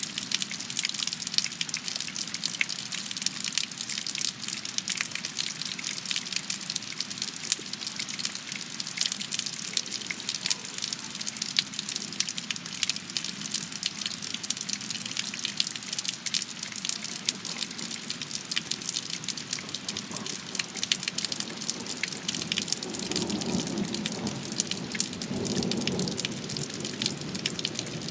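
Steady heavy rain: a dense patter of drops over a constant hiss of falling water. A low rumble swells in near the end.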